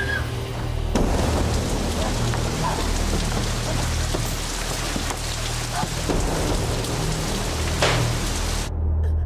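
Heavy rain falling, a dense even hiss over a steady low rumble. It stops suddenly near the end.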